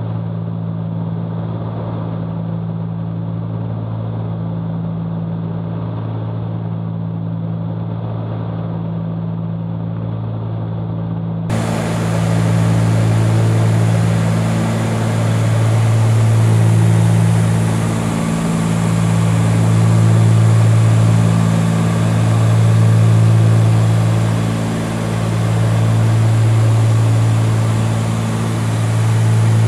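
Cockpit drone of a Cessna 310Q's two piston engines and propellers in cruise, a steady low hum. About eleven seconds in it becomes louder and brighter, and from then on it slowly swells and fades every two to three seconds.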